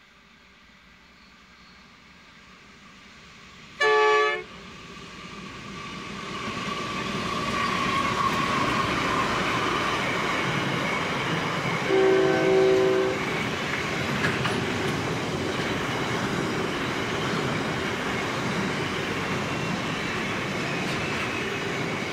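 Diesel freight train with NR-class locomotives approaching and growing steadily louder. A short horn blast sounds about four seconds in, and a longer, lower-pitched horn blast about twelve seconds in. After that comes the steady rolling noise of the container wagons passing close by.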